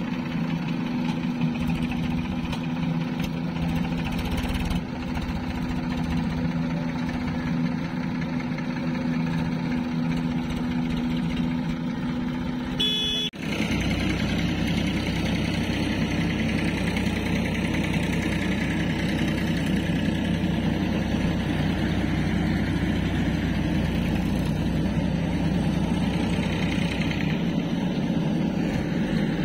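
Diesel engine of a JCB 3DX backhoe loader running steadily close by. After a sudden cut about 13 seconds in, a deeper diesel tractor engine running as the tractor pulls a trolley away.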